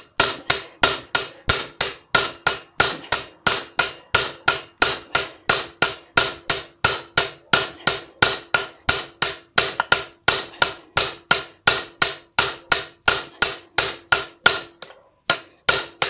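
Steady hammering, about three blows a second: a claw hammer striking a steel hammer head held as a drift against the bent rim of a Honda Dio AF-62 scooter wheel, knocking a dented spot straight. Each blow is a sharp metallic clank with a short ring, with a brief pause about fifteen seconds in.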